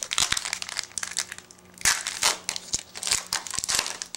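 Foil wrapper of a Bowman Chrome baseball card pack crinkling and crackling as it is torn open by hand, in irregular bursts, loudest about two seconds in.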